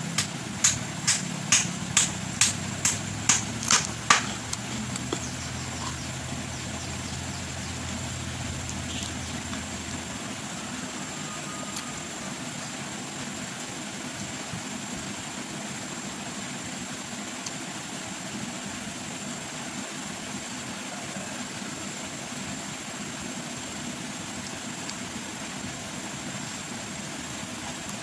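Crisp, regular crunching of a mouthful of raw vegetables being chewed, about two chews a second for some four seconds. Afterwards only a steady background hiss, with a low hum that stops about ten seconds in.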